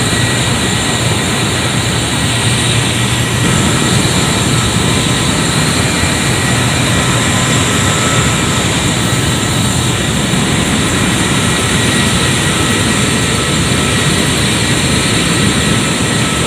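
Steady, loud power plant machinery noise, an even rush with several thin whining tones held above it.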